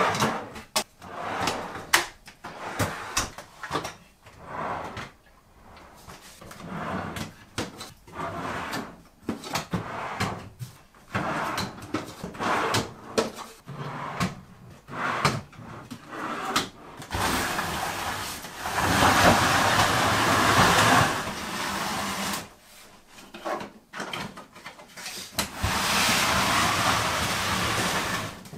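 Plastic Systainer tool cases being pulled from the slide-out shelves of a storage unit and stacked: a run of knocks and clacks, then two longer stretches of sliding, scraping noise near the end.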